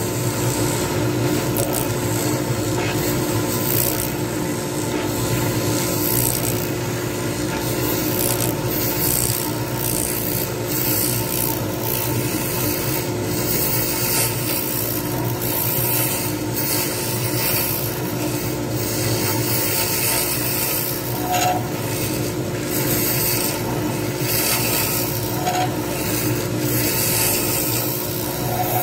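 Lathe motor running with a steady hum while a hand-held turning tool cuts a spinning resin pen blank, making a continuous scraping sound as shavings come off.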